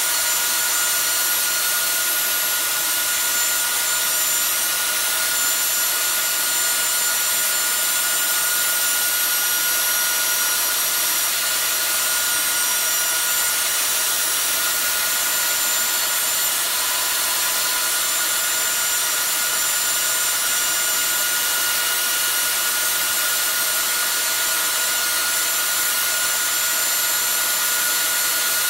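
DeWalt 611 router on a Lowrider 2 CNC running steadily with a 1/8-inch end mill, cutting through 5 mm plywood as the gantry moves, with the dust extraction running. A constant high whine and rush of air, unbroken throughout.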